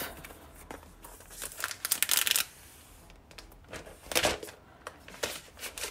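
Clear plastic protective wrap being peeled off a laptop's aluminium case, crinkling and crackling in a few separate bursts.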